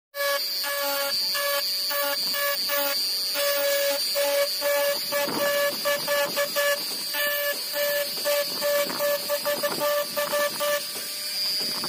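Mini die grinder (rotary tool) running with a steady high whine while its bit engraves glass. The whine breaks up rapidly, many times a second, mixed with scratchy grinding, and stops about a second before the end.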